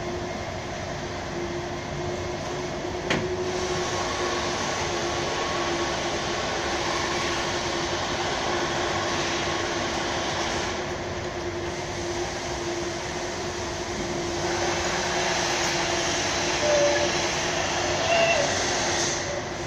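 Steady workshop background noise: a constant hum under an even rushing wash. There is a single sharp click about three seconds in and a few light clinks near the end.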